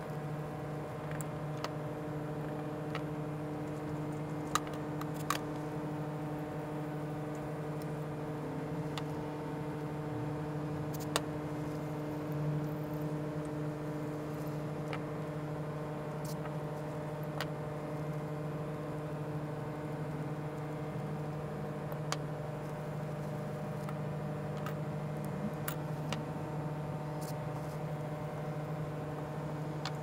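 A steady, even hum runs throughout, likely from bench equipment. Scattered light clicks and taps sound over it as a disassembled cooling fan's plastic impeller, its frame and small tools are handled and set down on a rubber work mat.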